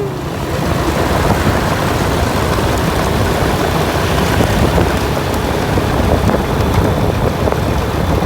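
A motorcycle ride on a road: a steady rushing noise of wind and engine, with no break.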